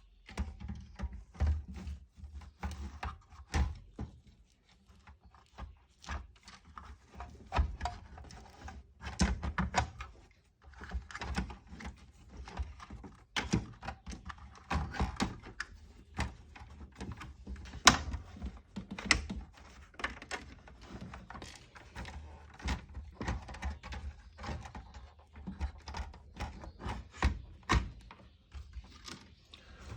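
Irregular clicks, knocks and rattles of PS3 console parts being handled and fitted back into place during reassembly, the loudest knock about eighteen seconds in.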